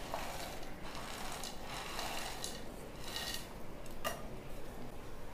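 Faint clinks and scrapes of metal kitchen utensils against a pan as fried boondi is tipped into warm sugar syrup, with one sharper clink about four seconds in.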